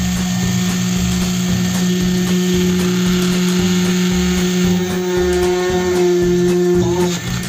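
Homemade press drill's 775 brushed DC motor running steadily as the bit is lowered into a block of wood. A second, higher tone joins the hum about two seconds in and falls away near the end, where the sound briefly dips.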